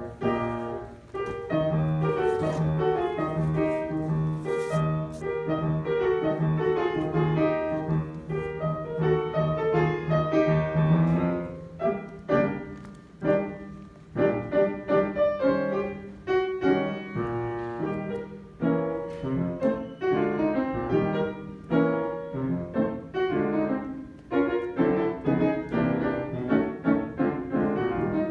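Piano playing. For the first ten seconds or so a low note repeats rapidly under the melody, and then the music moves on in changing chords and runs.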